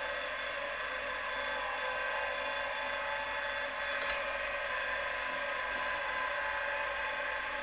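Milling machine running steadily, a whir made of many steady tones, with a faint tick about four seconds in.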